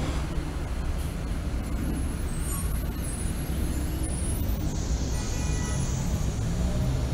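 City buses moving past and pulling up close on a wet street, their engines running with a steady low rumble. About five seconds in, a short hiss with a brief squeal as a bus brakes.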